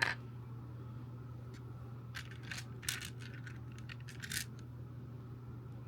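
Plastic Lego pieces clicking and rattling as they are handled: one sharp click at the start, then a cluster of small clicks from about two to four and a half seconds in.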